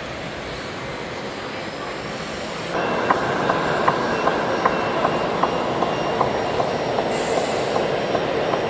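A radio-controlled construction machine starts running about three seconds in: a steady mechanical whir from its motor and drive, with a regular metallic click about two or three times a second.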